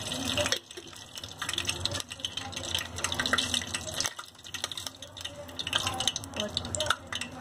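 Hot oil with freshly added homemade ghee sizzling in a steel pot, a steady crackling fizz that dips briefly twice.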